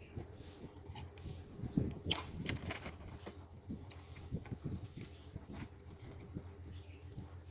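Irregular light clicks, taps and rustles of small parts being handled, over a faint steady low hum.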